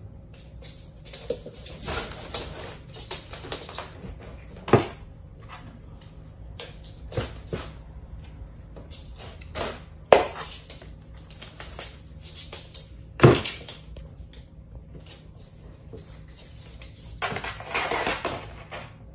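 A cat pawing at and bumping an open cardboard box: scraping and rustling of cardboard with a few sharp knocks, and a longer stretch of scraping near the end.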